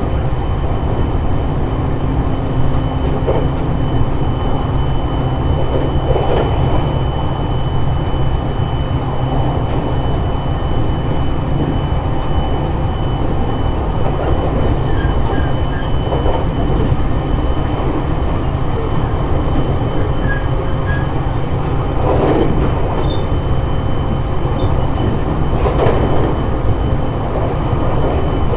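Running sound of a JR East E721 series electric train heard from inside the car: a steady rumble of wheels on rail, a faint steady high tone, and a few brief clacks over rail joints.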